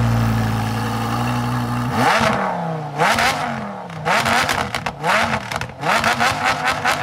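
Lamborghini Huracán Performante's V10 engine running at a steady high idle, then revved in a series of quick blips, each rising and falling in pitch. The heavy exhaust vapour marks it as a cold engine just started.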